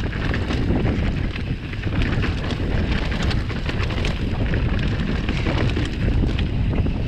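Mountain bike riding downhill over a rocky, grassy trail: steady wind buffeting the microphone, with the tyres rolling over stones and the bike rattling in many small clicks and knocks.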